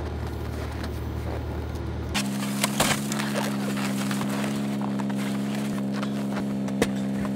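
Ice-fishing gear being loaded into the back of an SUV: scattered knocks and clatter of equipment against the cargo drawer and hatch, a few close together about a third of the way in and one sharp knock near the end, over a steady low hum.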